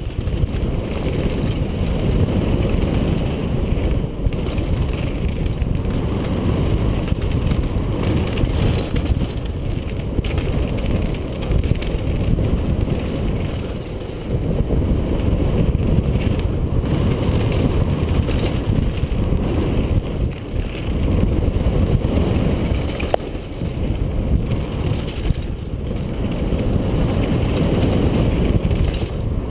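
Steady rush of wind on a helmet-mounted action camera's microphone, mixed with tyres rolling over dirt and loose rock as a mountain bike descends a downhill trail at speed.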